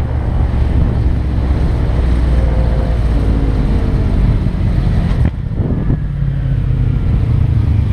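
Motorcycle engine running at road speed, under heavy wind rush on the microphone. About five seconds in the wind hiss drops off suddenly while the engine's low rumble carries on.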